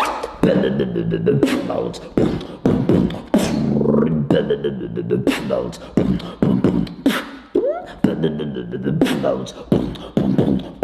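Beatboxing: a run of sharp mouth-made drum hits with hummed, pitched vocal sounds between them.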